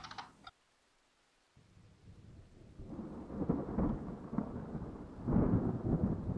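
A low rumbling noise that builds up after about a second of dead silence and swells twice, loudest in the second half.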